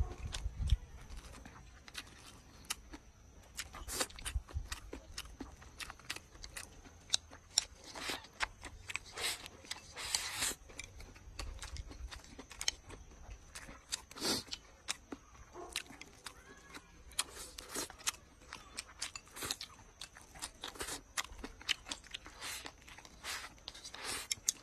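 A person chewing and crunching a mouthful of rice with sausage, cabbage and peppers. It comes as irregular crackly clicks, with a few longer crunchy stretches.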